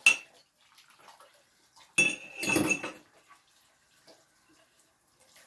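Dishes and cutlery clinking: one sharp clink at the start, then a clatter of several knocks about two seconds in.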